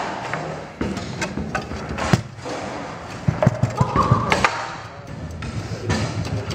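Foosball table in play: sharp knocks of the ball being struck by the rod figures and bouncing off the table walls, with the rods rattling, including a quick run of knocks about three to four and a half seconds in.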